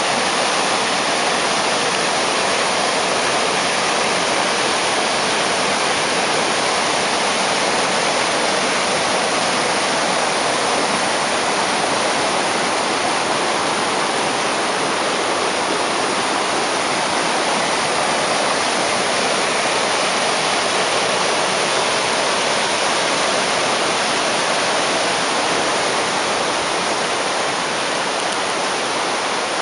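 Steady rush of a small creek in flood, a trickle of a stream turned into a fast, muddy torrent churning over rocks and debris.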